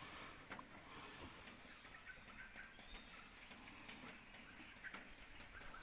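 Crickets chirping in a steady, high-pitched pulsing trill of about eight or nine pulses a second, with faint bird chirps behind it.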